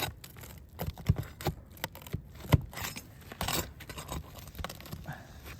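Scattered clicks, taps and scrapes of roof shingles and their nails being lifted and pressed back down by hand. The sharpest knock comes about two and a half seconds in.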